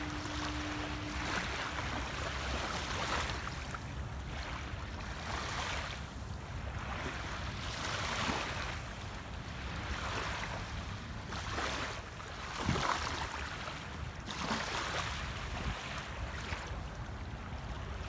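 Small waves lapping gently onto a sandy beach, each wash swelling and fading every couple of seconds over a low steady rumble. A steady low tone sounds briefly at the very start.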